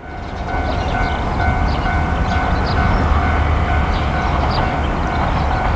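A two-car Tarumi Railway diesel railcar train running, with a steady low engine rumble and a steady whine above it.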